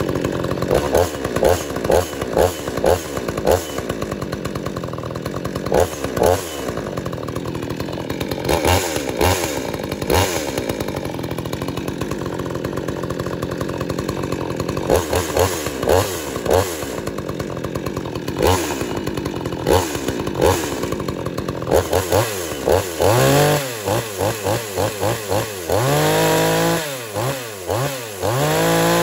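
Perla Barb 62cc two-stroke chainsaw running on its first run out of the box, the throttle blipped every second or two so the engine revs up and falls back. Near the end it is revved in quick succession and then held at high revs for a few seconds.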